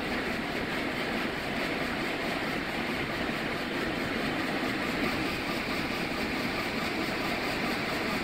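Komori LS640+CX six-colour sheet-fed offset press running steadily at 16,500 sheets per hour, its top speed, with an even mechanical din.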